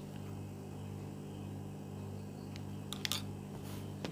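Steady low hum in the room, with a few brief crisp rustles and clicks about three seconds in as cotton cloth is handled on the sewing table.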